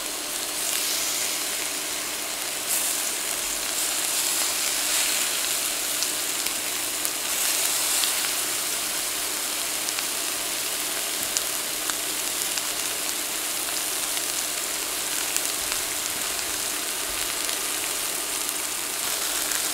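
Cajun-seasoned alligator pieces sizzling steadily in hot avocado oil in a cast iron skillet, with scattered small crackles. A faint steady hum runs under the sizzle.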